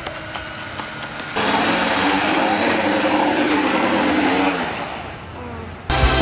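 Whirring of a homemade quadcopter drone boat's four electric propeller motors, louder from about a second and a half in with several pitches that waver together, then falling in pitch and fading. Electronic music starts abruptly near the end.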